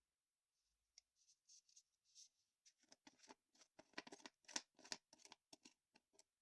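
Faint rustling, scratching and clicking of packaging being handled by hand, a run of short quick sounds that grows busier from about three seconds in.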